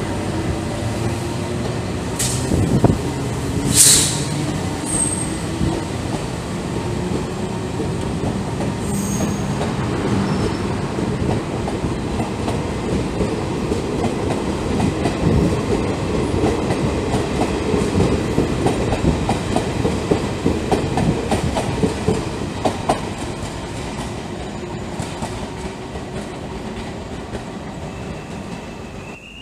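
Taiwan Railways passenger train passing close by. It starts with a steady running hum and two short, sharp high-pitched sounds about two and four seconds in, then a rapid clickety-clack of wheels over rail joints that fades as the train moves away.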